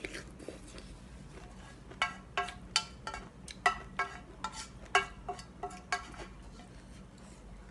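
Wooden spoon knocking and scraping against a speckled enamel pot: about a dozen sharp, ringing clinks starting about two seconds in, as the last of the noodles are scraped up.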